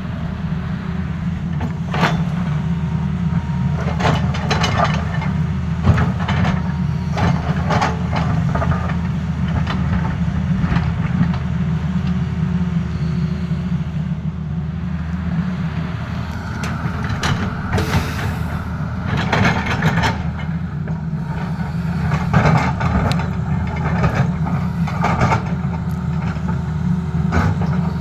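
Tata Hitachi excavator's diesel engine running steadily at working speed, with frequent clanks and knocks from the machine at work scattered through.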